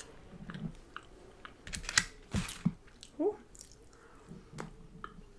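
Eating a fried chicken wing: biting and chewing with a cluster of crisp crunches about two seconds in.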